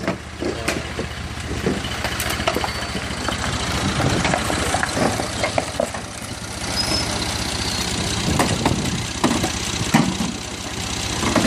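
Tractor engine idling steadily, with scattered clinks and crackles as flattened tin cans are laid under its rear wheel.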